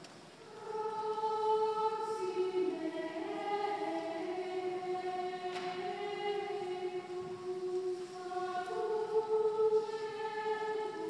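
Choir singing slow, sustained chords of sacred music in a reverberant cathedral, coming in about half a second in.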